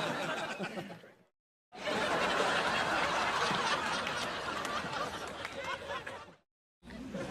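Sitcom laugh track: a studio audience chuckling and laughing, in separate clips with short gaps of dead silence between them. One clip fades out about a second in, the next runs for about four and a half seconds, and another starts near the end.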